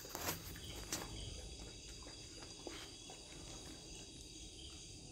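Quiet background with a faint, steady high-pitched ringing hum and a few soft knocks, the clearest about a second in.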